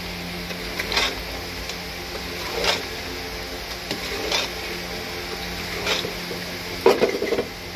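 Metal spoon scraping against an aluminium pot while chicken curry is stirred. The strokes come about every one and a half seconds, with a louder run of scrapes near the end, over a steady low hum.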